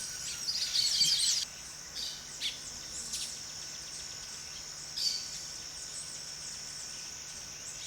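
Tropical forest ambience: a steady high-pitched insect drone under several bird chirps and calls, with a quick flurry of chirps in the first second and a half and single calls scattered after.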